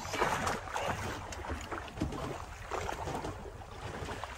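Water sloshing against the side of a small fishing boat drifting at sea, with wind on the microphone and splashing at the surface beside the hull near the end.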